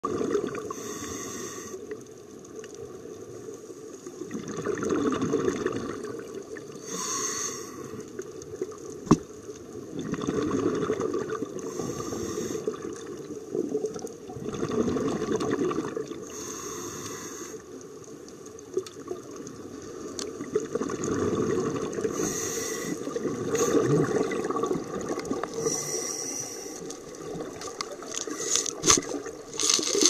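Underwater sound of a scuba dive: a muffled rush of moving water with bursts of regulator exhaust bubbles recurring every five seconds or so, like a diver breathing. There is one sharp click about nine seconds in, and the bubbling grows louder and busier near the end.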